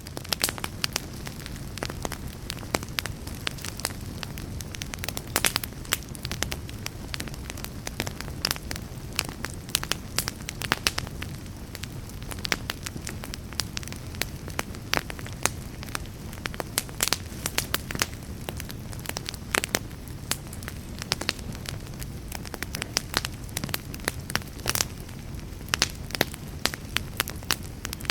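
Wood logs burning in a fireplace: a steady low rumble of flames with frequent sharp, irregular crackles and pops.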